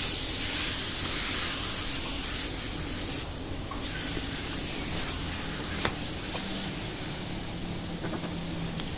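Raw pork cubes sizzling as they are sautéed in a pan and stirred with a silicone spatula: a steady frying hiss. A couple of light clicks of the spatula against the pan come in the second half.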